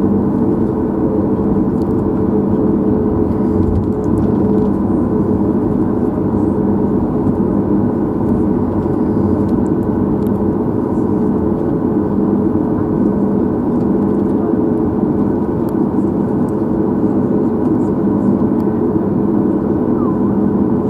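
Cabin noise of a Boeing 737 MAX 8 taxiing, heard from a window seat over the wing: its CFM LEAP-1B engines at low taxi thrust make a steady hum with a few held tones and no change in level.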